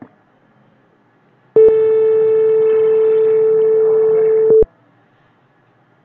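Simulated buzzer of a PIC development board in PICSimLab sounding one steady electronic beep for about three seconds, starting and stopping abruptly, signalling that the microwave oven's preheating countdown has finished.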